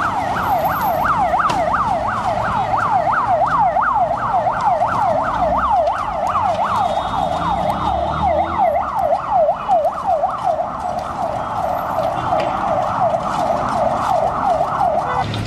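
Emergency vehicle siren in a fast yelp, its pitch sweeping up and down about three times a second without a break, then cutting off abruptly near the end.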